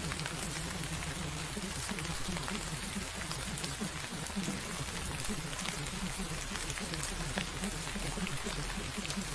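Steady rain, an even hiss with scattered drop ticks, over a low muffled murmur.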